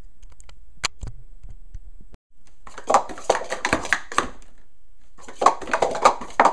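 Speed Stacks sport-stacking cups being stacked and unstacked at speed: rapid clattering of hard plastic cups on the mat. It comes in two runs of about two seconds each, with a brief pause between.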